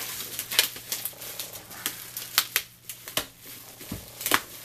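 Plastic bubble wrap crinkling and crackling as it is handled and pulled off a boxed item, in irregular sharp crackles.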